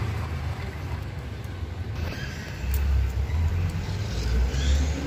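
Plastic toy trucks rolling over a rough concrete floor, a low uneven rumble that grows louder about halfway through.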